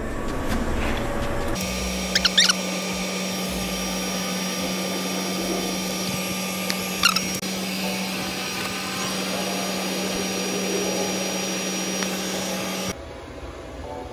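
TIG welding arc running steadily at about 100 amps during the hot pass on steel pipe, a continuous hiss with a steady hum. It starts about a second and a half in and cuts off suddenly about a second before the end, as the arc is broken.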